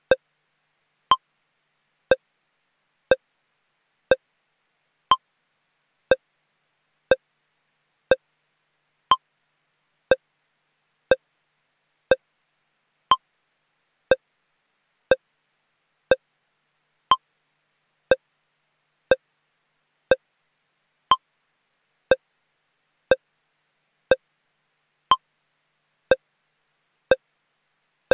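Short electronic pips, one about every second in a steady rhythm, with silence in between; most are at one pitch, and every few seconds one comes at a higher pitch.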